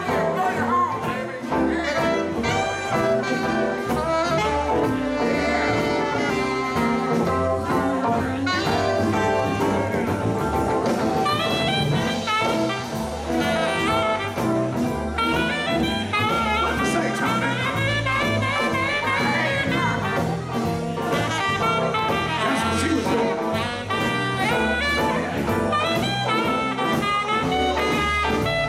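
Live band playing amplified music, with saxophone, electric guitar, keyboard and drums, the music continuous and steady in level.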